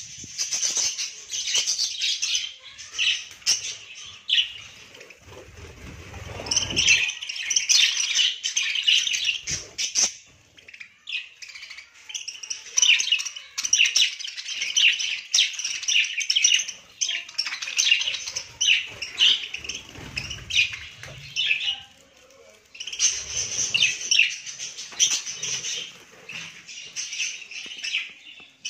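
A colony of about thirty budgerigars chattering and chirping together, in rapid bouts with a few short lulls, with occasional low rumbles underneath.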